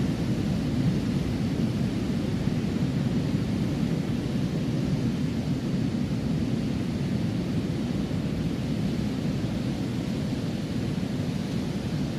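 Steady low roar of ocean surf and seashore wind, an even rumbling wash without any distinct breaks or surges.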